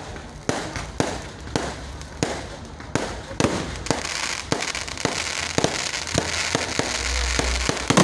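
Fireworks going off: a run of sharp bangs about two a second, thickening about halfway through into rapid crackling with many overlapping pops.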